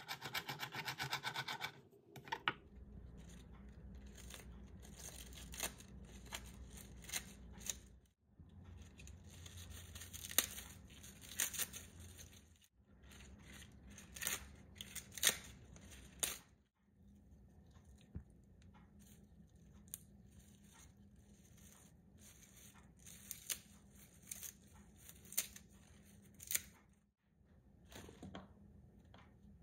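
A chef's knife chopping fresh parsley in quick strokes on a wooden cutting board for about two seconds. Then hands tearing and working crisp lettuce leaves in a wooden salad bowl, rustling and crackling with sharp snaps. Near the end, chopped cucumber drops onto the leaves.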